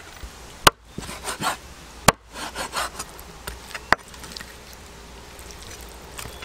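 Knife chopping raw chicken on a wooden chopping board: three sharp knocks over the first four seconds with lighter taps between them, then quieter rubbing as the cut meat is handled.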